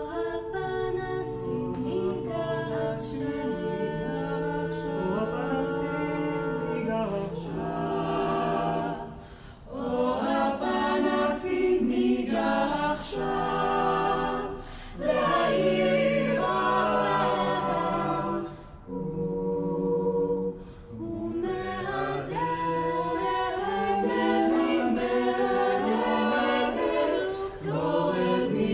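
Small mixed-voice a cappella ensemble singing in Hebrew in close harmony, with held chords and moving lines. Phrases break off briefly about nine and fifteen seconds in, with a longer pause near twenty seconds before the voices come back in.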